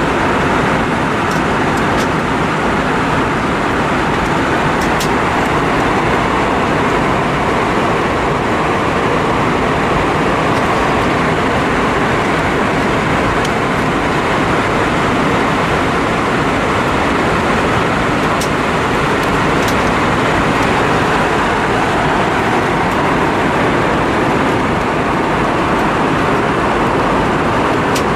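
Steady cabin noise of an Airbus A320-232 in flight: an even rush of airflow and engine noise with no change in level.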